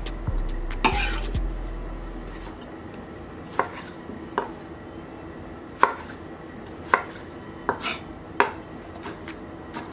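Chef's knife dicing cucumber on an end-grain wooden cutting board: about nine sharp, unevenly spaced knocks of the blade on the board.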